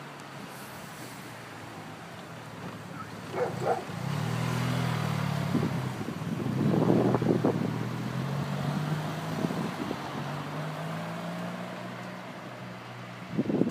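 A motor vehicle's engine running in the street, coming up about four seconds in, loudest a couple of seconds later, its pitch wavering, then slowly fading.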